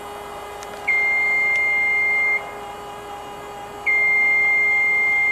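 Genie Z-40/23N boom lift's motion alarm sounding long, steady high beeps, about a second and a half on and a second and a half off, twice, while the boom lowers. Under the beeps runs a steady machine hum from the lift's drive.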